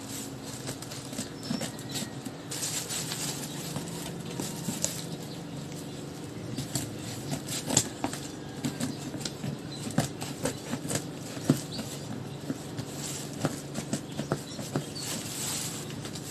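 Packaging being handled and opened by hand: irregular rustling, crinkling and small taps, over a steady low hum.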